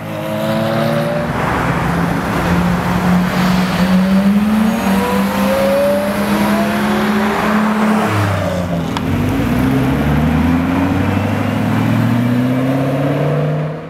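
Supercar engines revving hard as the cars accelerate away one after another, the pitch climbing and dropping back through the gear changes: a Ferrari F430's V8, a Porsche Carrera GT's V10 and a Ford GT's supercharged V8. About eight seconds in, a different, lower engine note takes over.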